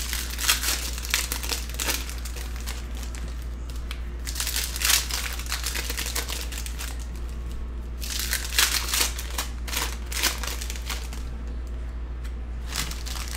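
Foil trading-card pack wrappers crinkling and tearing as they are ripped open and handled, in several bursts a few seconds apart, over a steady low hum.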